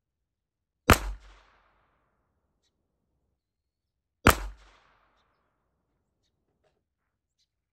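Two single shots from a Ruger Mark IV Hunter .22 LR pistol, about three and a half seconds apart, each a sharp crack followed by a short echo.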